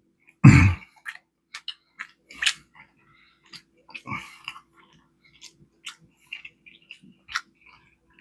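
Close-miked chewing: wet mouth clicks and lip smacks, with one louder mouth noise about half a second in.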